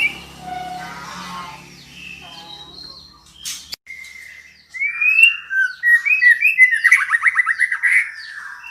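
Female white-rumped shama calling: fainter whistles over a low hum at first, then, after a short break, louder rising whistled notes and a fast trill toward the end.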